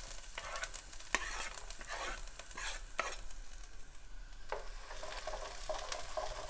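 Diced carrots sizzling in hot oil in a nonstick frying pan while a wooden spatula pushes them in from a cutting board and stirs them, with a few sharp taps and scrapes of the spatula against the pan.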